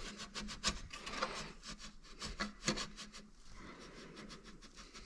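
Light clicks, taps and scraping as a steel roll-cage tube and a thin sheet-steel gusset are handled and rubbed against each other. The clicks are busiest in the first three seconds, then the sound fades to a faint rustle.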